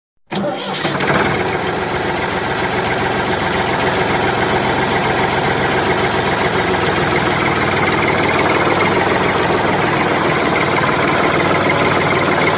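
Engine idling steadily, starting abruptly just after the opening and keeping an even, unchanging sound throughout.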